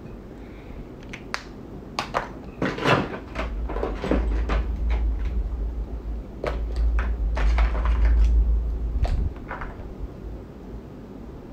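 Handling noise close to a phone's microphone: a run of clicks and knocks, with a low rumble through the middle, as items are picked up and put down.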